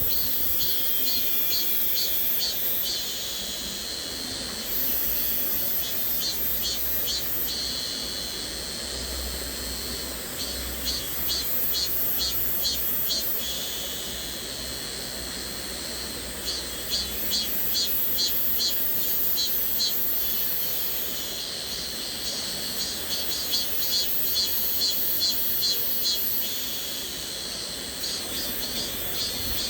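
Cicadas buzzing high-pitched in quick pulses, the chorus swelling and fading in waves every few seconds over the faint steady rush of a stream.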